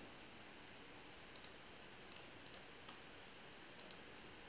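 Faint computer mouse clicks, mostly in quick pairs, a handful of times over quiet room tone.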